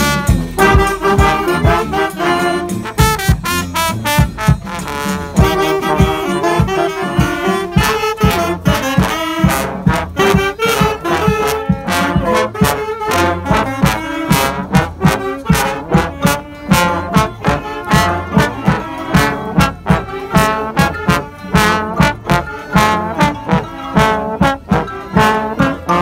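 Street brass band playing: trombones and trumpets over a steady drum beat, with the drum hits standing out more clearly in the second half.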